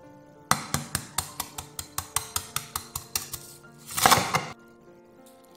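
A kitchen knife tapping the shell of a boiled egg on a wooden cutting board, about five sharp taps a second for some three seconds, cracking the shell. Then a louder crackling crunch of about half a second as the shell breaks up under the blade. Soft background music.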